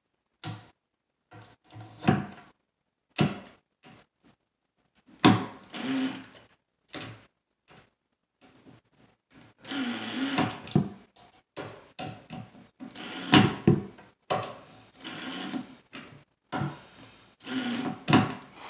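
Several clicks and knocks of a cabinet door and its hinges being handled, then about five short bursts from a cordless impact driver given quick, light trigger presses to drive hinge screws.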